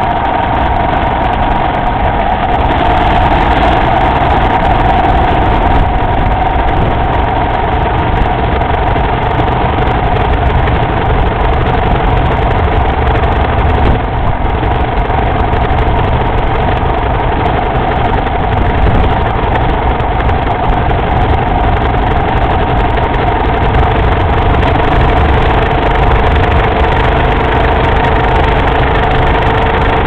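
Motorcycle running at a steady cruising speed: a continuous engine drone with a steady whine over a heavy low rumble of wind on the microphone.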